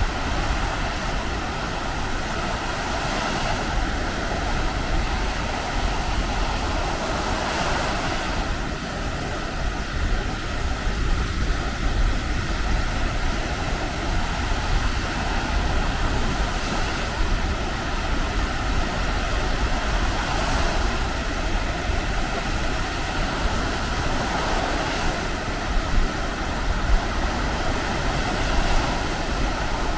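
Baltic Sea surf breaking on the beach, the wash swelling every few seconds, with wind rumbling on the microphone.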